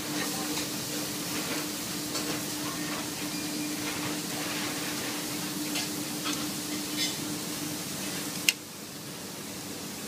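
Tied filet steaks sizzling on a charcoal grill, with light clicks of metal tongs as the steaks are turned. A steady low hum runs under it and stops about eight seconds in, and a single sharp click comes just after, after which the sizzle is a little quieter.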